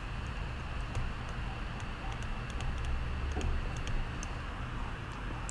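Irregular light clicks and ticks of a stylus on a tablet screen as handwriting is written, over a steady low hum.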